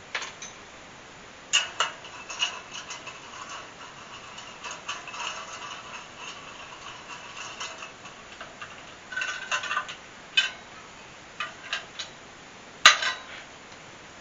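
Light metallic clicks and clinks as a nut is turned down a threaded nipple onto spacers and a steel chandelier bobeche, the small steel parts tapping and briefly ringing. The sharpest clicks come about one and a half seconds in and near the end.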